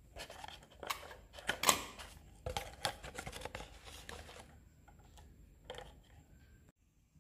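Thin plastic water bottle handled and tipped onto its side, its walls crackling and tapping in a run of irregular clicks that dies away near the end.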